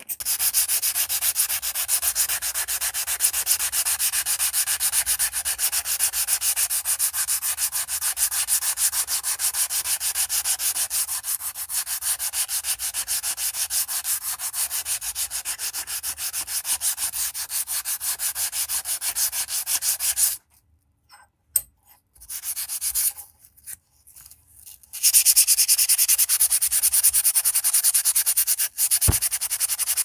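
Sandpaper rubbed by hand back and forth along the rusty steel blade of an antique pocket knife, in quick, even strokes. The sanding stops for a few seconds about two-thirds of the way through, with a couple of short scrapes, then starts again.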